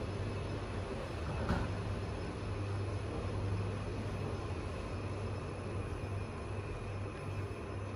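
Otis Gen2 Regen machine-room-less lift car descending, with a steady low hum and ride noise inside the car. A single short click comes about a second and a half in.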